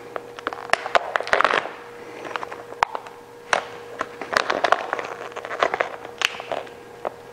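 Chrome vinyl wrap film crackling and crinkling as it is stretched and worked over a grille, in irregular clicks and short crackly bursts, over a faint steady hum.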